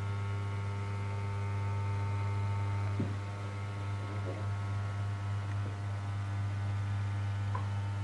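Steady low electrical mains hum with a stack of faint higher steady tones above it. A light click comes about three seconds in and another near the end.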